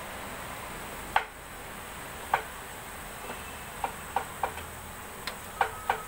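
Light, sharp clicks and taps against a stainless steel pot as food is handled inside it, each with a short metallic ring. They come about a second apart at first, then quicker and in small clusters in the second half.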